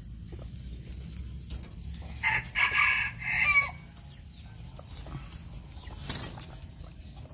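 Chicken calls: three short, harsh squawking clucks about two to three and a half seconds in, over a low steady background, followed by a single sharp tap about six seconds in.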